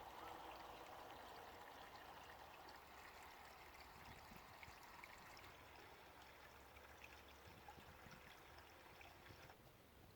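Faint trickling water, cutting off suddenly near the end.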